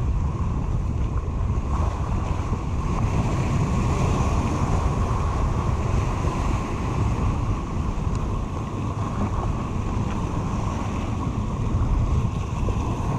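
Wind buffeting the microphone over surf breaking and washing around the rocks of a jetty, a steady rushing noise.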